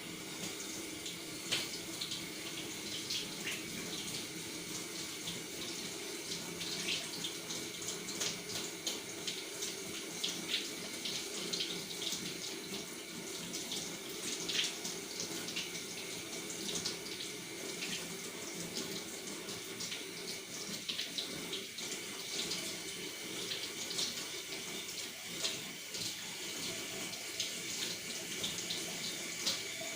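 A freshly cast tin-silver-antimony solder ingot being cleaned: a steady hissing rush with many short, irregular scratchy strokes.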